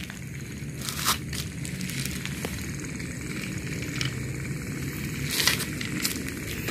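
Battery-powered toy train locomotive running on plastic track, a steady low motor hum with a couple of sharp clicks, as it pulls its wagons on a nearly flat battery.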